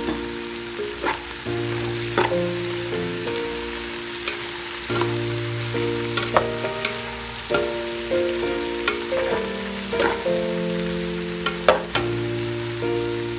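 Shrimp frying in butter in a metal pot, a steady sizzle, stirred with a metal spoon that clinks and scrapes against the pot many times. Background music with held notes plays underneath.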